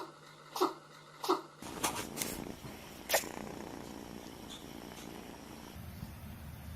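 A cat sneezing several times in quick succession, about one sneeze every two-thirds of a second. After that come a few short, sharp sounds over steady background noise.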